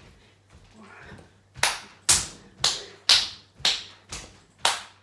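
Forceful, hissing breaths out, seven in a row about two a second, starting about a second and a half in, each sharp and quickly fading, in time with fast punching moves during a body combat workout.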